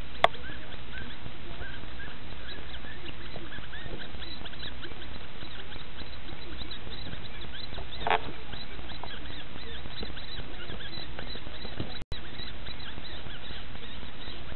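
Newborn fisher kits (a weasel-family mustelid) giving many tiny, short, high squeaks over a steady hiss. There is a sharp click just after the start and a louder sound about eight seconds in.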